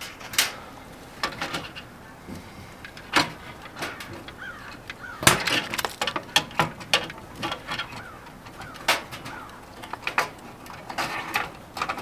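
Irregular clicks, knocks and rattles of hands working wiring and plastic parts inside a Suburban RV furnace compartment, the loudest knock about five seconds in. Birds chirp in the background.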